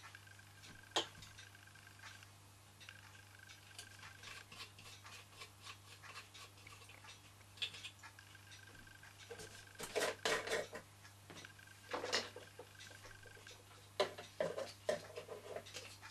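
Small metal clicks, taps and scrapes from hands working on the tinplate boiler of a Gem toy marine steam engine as it is filled and closed. Louder clusters of metallic rattling come about two-thirds of the way in, and again near the end.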